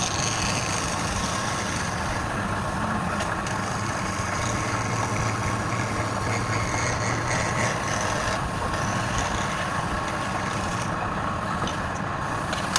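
Wood lathe running steadily, a constant motor hum under an even mechanical noise.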